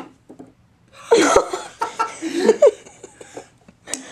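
A sharp click of a mini pool cue striking the ball, then a person laughing in loud bursts; two quick knocks near the end.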